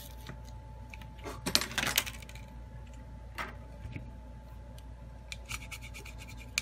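Handling noise from a Samsung Galaxy A21s phone's bare mid-frame being moved on a silicone repair mat. There is a cluster of rubbing and clicks about one and a half seconds in and a single scrape a little later, then a quick run of small clicks near the end as a plastic pry tool works along the frame's edge.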